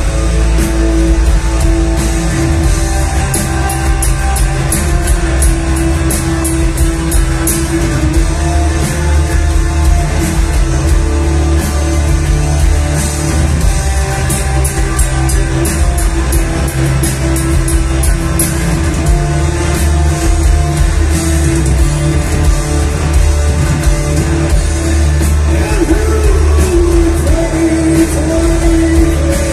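Heavy metal band playing live at full volume: electric guitars and bass over drums with a steady run of cymbal hits, and a singer's voice.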